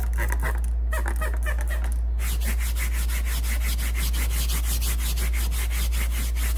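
Hand scrub brush scrubbing fabric sofa upholstery in fast back-and-forth strokes, about five a second, in short bouts at first and then steadily from about two seconds in. A steady low hum runs underneath.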